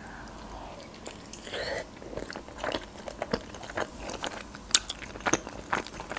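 A person biting into and chewing a boiled Georgian khinkali dumpling close to the microphone: a string of small, irregular mouth clicks.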